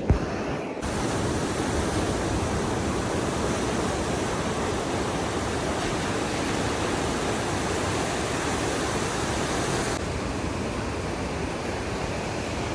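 Steady rushing noise of wind and sea. It brightens about a second in and turns slightly duller near the end.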